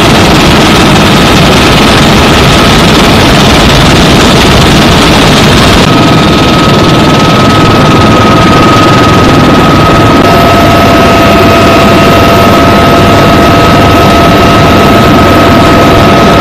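UH-1Y Venom helicopter's twin turboshaft engines and rotor heard from inside the open-door cabin in flight: a loud, steady rush with a constant high turbine whine, its character shifting slightly about six seconds in.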